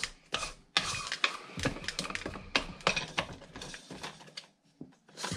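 String trimmer head being unscrewed and handled on the Stihl trimmer's threaded shaft: an irregular run of plastic and metal clicks and rattles.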